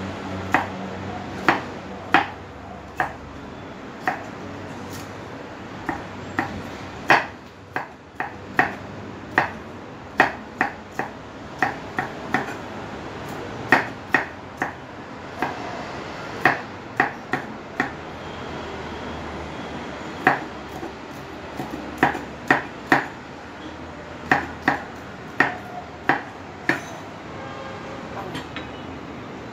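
Kitchen knife chopping vegetables on a wooden cutting board: sharp knocks of the blade hitting the board, uneven, about one or two a second with short pauses.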